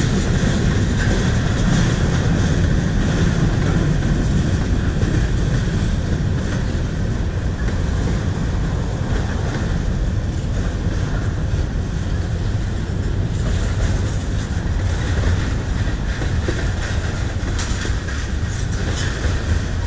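Freight train cars rolling steadily past, with the continuous rumble of steel wheels on rail from covered hoppers, a tank car and autorack cars.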